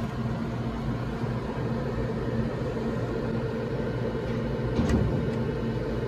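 Steady low machine hum, with one short click about five seconds in.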